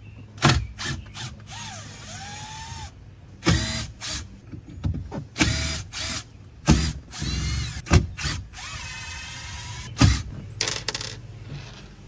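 Impact driver run in a series of short bursts, its motor whine rising and falling, backing screws out of boards.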